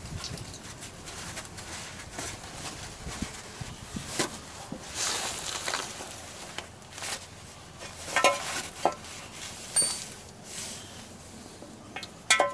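Irregular knocks and clinks of metal tools against parts, several sharp, one with a brief high ring, from work on the Jeep Gladiator's dented lower oil pan.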